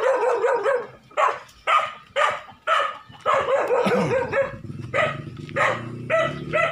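A dog barking over and over, short barks about half a second to a second apart. A low steady drone sits underneath from about four seconds in.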